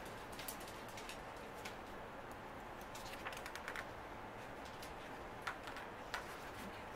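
Pages of a picture book being turned and handled: scattered light paper clicks and ticks, a small cluster of them about halfway through, over faint room tone.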